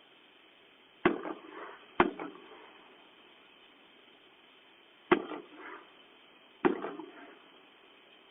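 Four firework bangs, two about a second apart, then a pause, then two more a second and a half apart, each followed by a short echoing tail.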